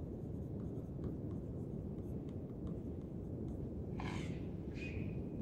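Light taps and scratches of a stylus writing on an interactive display board, a few faint ticks spread over the first three seconds, over a steady low room hum; a couple of soft rustles near the end.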